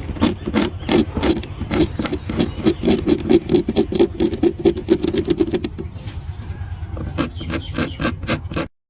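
Needle tip tapping and scraping at dalgona honeycomb candy in quick, even strokes, about four or five a second. About six seconds in it turns to a softer, smoother scraping for about a second, then the quick taps resume and stop abruptly near the end.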